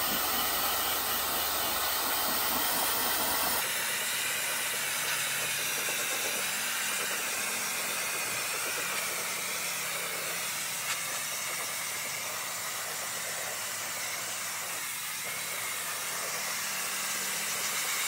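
JellyFish handheld high-velocity pet dryer running steadily with its wider nozzle fitted, a continuous rush of air blown into a dog's coat.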